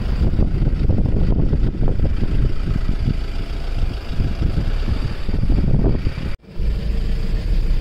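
Safari vehicle's engine running, a low uneven rumble; the sound drops out for a moment about six and a half seconds in.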